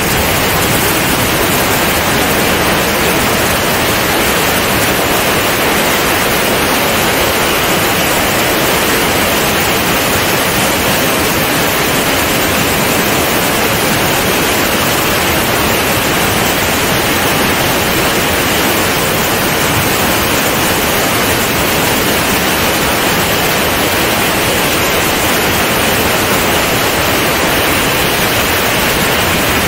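Loud, steady rush of airflow over the microphone of a camera mounted on the wing of a C42 ultralight in flight.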